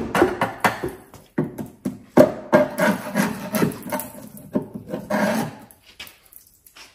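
Irregular scraping and knocking on the rusty underbody metal of a BMW E46, as it is probed for rust, with a lull near the end.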